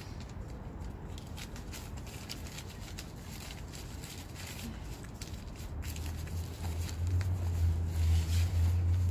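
Faint scuffing and rustling, then a low rumble that builds from about six seconds in and gets louder toward the end.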